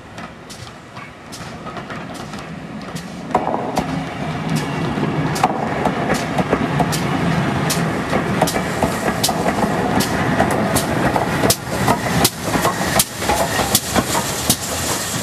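Steam-hauled passenger train of GWR 4300 class 2-6-0 No. 5322 running past, with a rumble and a run of sharp clicks of wheels over rail joints. It grows louder about three seconds in as the train draws level.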